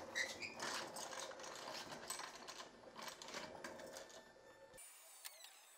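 A floor jack carrying an engine and transaxle rolled across a concrete floor: casters rumbling, with a dense run of clicks and rattles. The sound stops abruptly near the end.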